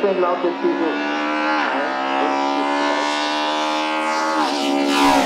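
BMW E30 M3 race car's four-cylinder engine held high in the revs, giving a steady, buzzing pitched note that climbs slowly. The note dips briefly twice.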